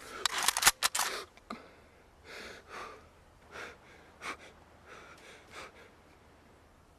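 A sudden burst of loud, rapid noisy strokes in the first second and a half, then a person breathing hard in short gasps, about seven of them.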